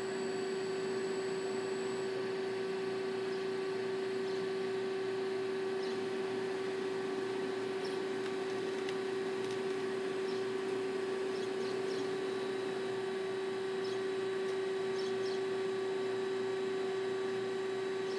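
Acra CNC lathe humming steadily with its hydraulics and servos powered up as it homes its axes, one strong steady tone over a bed of fainter tones, with a few faint ticks.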